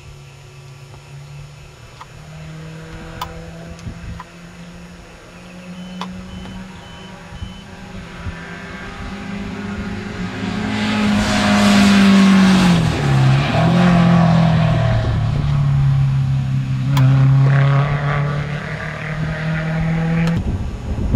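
A rally car's engine, faint at first, grows loud as the car approaches and goes by at speed about eleven to fourteen seconds in. The engine note falls sharply as it passes, then runs at a steady lower note until the sound cuts off just after twenty seconds.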